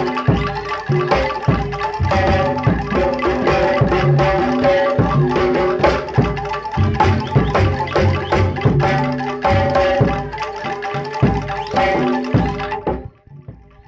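Javanese jaranan gamelan accompaniment: hand drums beating a busy rhythm over ringing metal gong-chimes. The music drops out suddenly about a second before the end, then comes back faintly.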